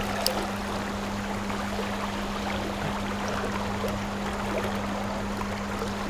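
Shallow creek riffle rushing steadily around the wading angler, under a steady low hum.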